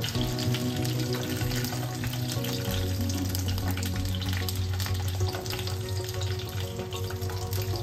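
Large green bajji chillies sizzling and crackling as they shallow-fry in oil in a kadai, with small scrapes and taps of a slotted spatula as they are turned and lifted out.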